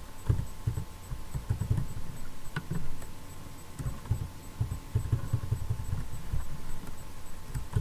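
Irregular low thumps over a steady electrical hum.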